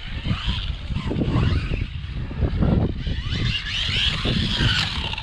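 Rlaarlo AMX12 electric RC buggy running hard: its motor whines up and down with the throttle under tyre noise and a scatter of short knocks.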